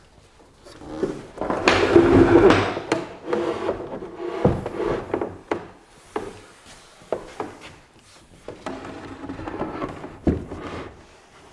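A large wooden staircase section scraping and sliding across a wooden workbench top as it is laid down flat, loudest about two seconds in, followed by scattered wood-on-wood knocks and bumps.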